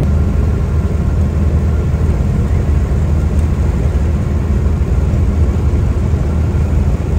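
Classic VW Beetle's air-cooled flat-four engine running steadily at road speed, heard from inside the cabin as a low drone mixed with road noise.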